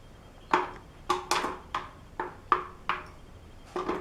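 Sliced almonds being scattered into a metal tube cake pan: about nine sharp, irregular taps, each with a brief metallic ring.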